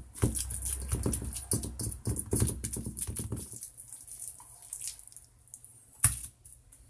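Ground pork, onion and carrot filling being kneaded by hand in a stainless steel bowl, in quick irregular strokes that stop about three and a half seconds in. About six seconds in, a single sharp tap as a hand presses plastic wrap onto a wooden cutting board.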